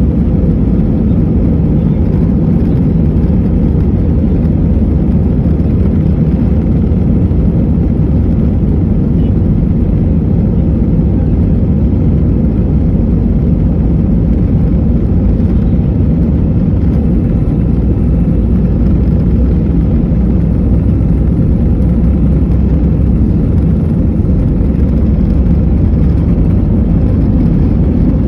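Steady, loud engine and runway noise heard inside the cabin of an Airbus A320-216 with CFM56 engines at takeoff thrust during the takeoff roll.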